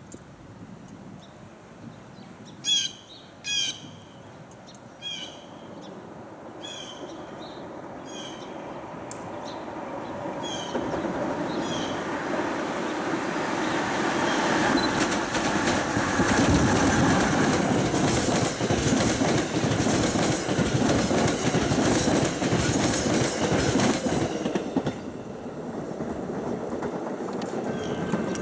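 A few short chirps early on, then a train on the electrified Northeast Corridor approaches and passes. Its rumble and wheel clatter grow louder over the first half, stay loudest for several seconds, then drop off near the end.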